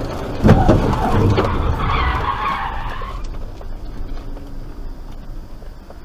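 Car tyres skidding as the car brakes hard and runs onto the dirt road edge. There are sharp knocks about half a second in, then a couple of seconds of rough skid noise that dies away as the car slows.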